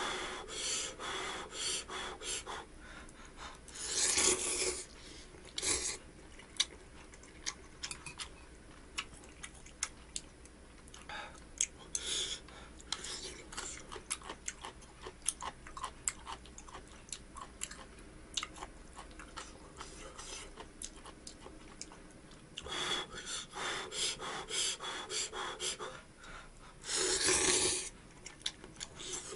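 A person eating ramen noodles: several loud slurps, about four seconds in and again near the end, with chewing and small clicks in between.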